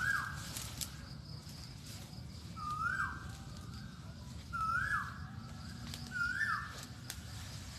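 A bird calling four times, each call a short note that rises and then drops sharply, repeated every one and a half to two seconds over a steady low background rumble.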